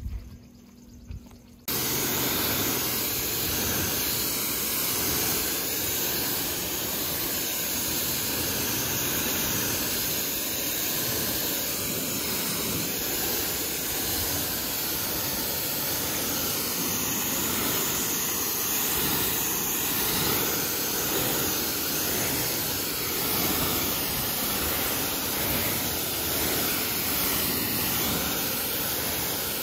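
Electric pressure washer running, its spray gun jetting water against a car's painted side panels in a steady hissing spray. It starts abruptly about two seconds in, as the trigger is pulled.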